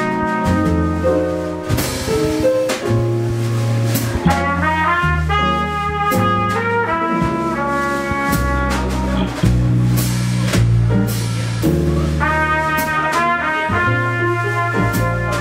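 Live jazz quartet: a trumpet plays the melody in long held notes over plucked double bass, keyboards and drums, with sharp cymbal and drum strokes scattered through.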